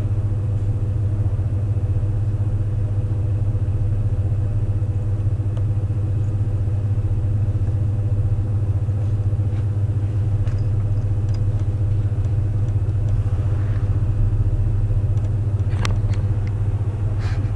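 Washing machine in its spin cycle, running with a loud, steady low hum. A couple of sharp clicks near the end.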